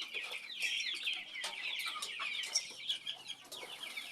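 A flock of poultry chickens calling, many short, high, falling peeps overlapping into a continuous chatter.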